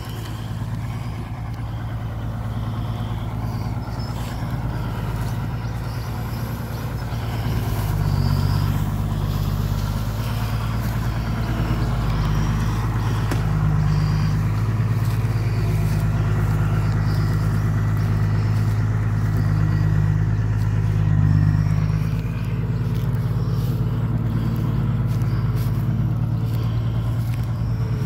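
Isuzu Rocky 195 six-wheel truck's turbo-diesel engine pulling a full load of sugarcane, getting louder about eight seconds in, with a faint turbo whistle over the engine through the middle stretch.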